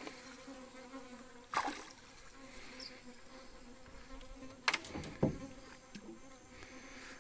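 Steady, even buzzing drone of flying insects, broken by three sudden sharp knocks, one about a second and a half in and two close together around five seconds in.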